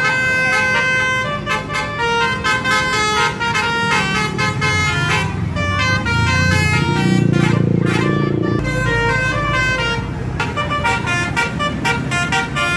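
Bus basuri horn, a multi-tone musical horn, playing a tune of quick stepped notes. A low rumble swells about six seconds in and cuts off sharply about two and a half seconds later.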